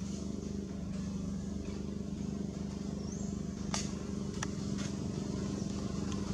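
A steady low mechanical hum, with a short rising high chirp about halfway through and three sharp clicks just after it.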